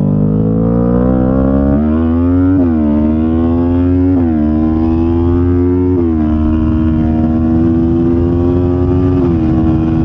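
Kawasaki Ninja 500's parallel-twin engine under hard acceleration on track, pitch climbing steadily and dropping sharply at quick upshifts about two and a half, four and six seconds in. After the last of these it pulls on, rising slowly, until another drop near the end.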